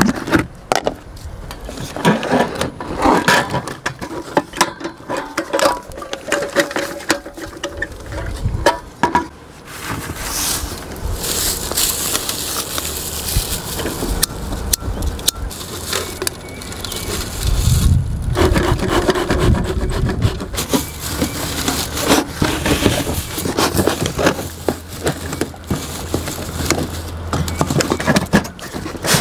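Dry pine straw rustling and crackling as it is handled and packed into a metal bee smoker, with sharp clicks and clinks from the smoker's hinged lid and can.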